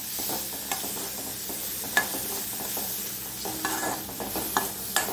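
Chopped tomatoes, shallots and spices sizzling in oil in a metal kadai as they soften, stirred with a metal spoon that scrapes and clicks against the pan every second or so.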